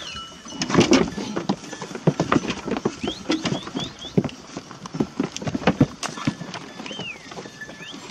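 Hooves of sheep and goats clattering irregularly on hard ground as the flock moves about. A bird chirps a few short rising notes about three seconds in.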